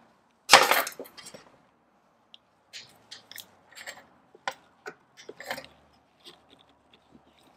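Small metal clicks and scrapes of a hand pick working at the retaining clip on a strut's solenoid housing, with one sharp clack about half a second in.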